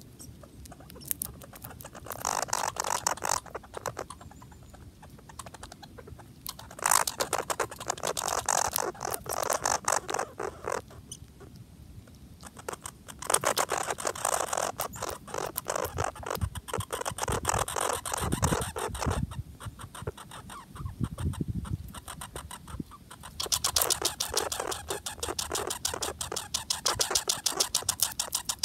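Red squirrel chewing bird seed close up: four bouts of rapid crunching clicks, each a few seconds long, with short pauses between. A few dull low bumps come about two-thirds of the way through.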